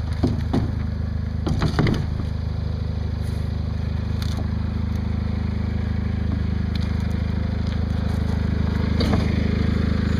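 Garden tractor engine running at a steady idle, with a few short knocks and rattles in the first two seconds.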